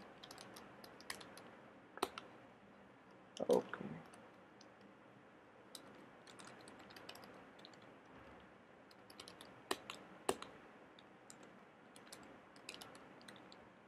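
Faint typing on a computer keyboard: irregular scattered keystrokes with short pauses, and one louder thump about three and a half seconds in.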